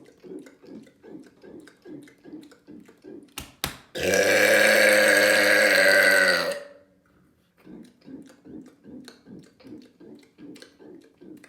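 A man's long, loud mega burp lasting about two and a half seconds, held at a fairly steady deep pitch, preceded by two sharp clicks. A faint rhythmic pulsing, about two to three beats a second, runs before and after it.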